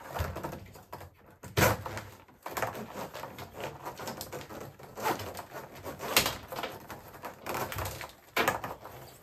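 Handling noise as a dishwasher's plastic fill hose is unclipped from its holders and pulled free: irregular knocks, clicks and rubbing, with a few sharper knocks.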